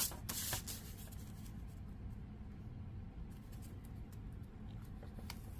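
Faint handling of paper on a plastic scoring board: a few light taps and rubbing sounds near the start and again near the end, over a low steady hum.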